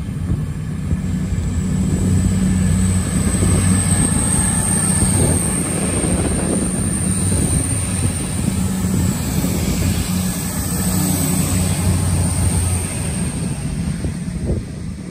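Diesel engines of an East Midlands Railway Class 180 multiple unit running through the station without stopping: a steady drone with a high whine above it, easing off near the end.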